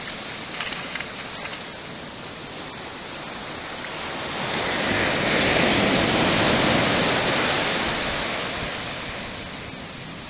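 Ocean surf washing up the beach, a rush of water that swells about four seconds in, peaks around six and ebbs away, with a few faint clicks near the start.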